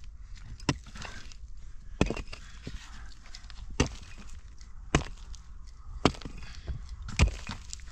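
A hand tool striking in a slow, even rhythm: six heavy blows about a second apart, with faint scraping between them.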